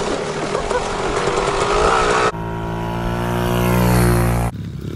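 Dirt bike engines in two cuts. First comes a mud-caked bike's engine under a noisy mix. About two seconds in, a small dirt bike's engine takes over, running at a nearly steady pitch and growing louder before it cuts off abruptly near the end.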